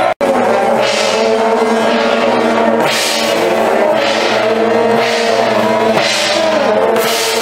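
Temple procession band: long straight metal horns blowing loud, sustained notes, with metal percussion crashes every one to two seconds.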